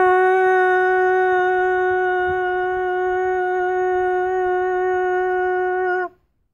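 Conch-shell trumpet (Hawaiian pū) blown in one long, steady note that drops slightly in pitch as it cuts off about six seconds in.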